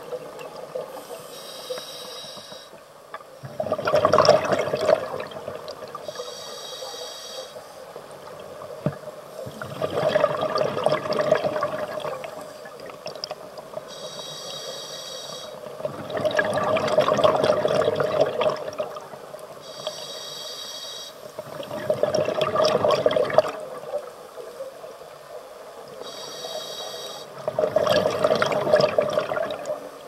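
Scuba diver breathing through a regulator underwater, in a slow cycle about every six seconds: a short hiss of inhalation, then a loud rush of exhaled bubbles. Five breaths.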